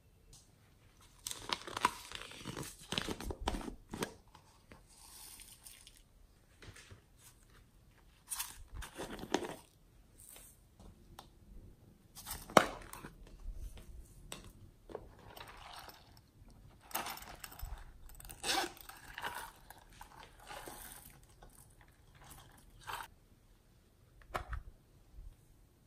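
Hands handling plastic slime containers and slime: sticky crackling and squishing as slime is scraped out and worked, with plastic lids and tubs clicking as they are opened. The sounds come in irregular bursts with short quiet gaps, and one sharp click about halfway through.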